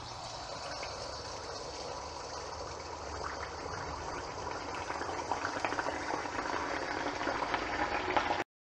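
Neyyappam batter of rice and jaggery frying in hot coconut oil: a steady sizzle and bubbling, with a crackle that grows louder over the first few seconds as the ladleful puffs up. It cuts off suddenly near the end.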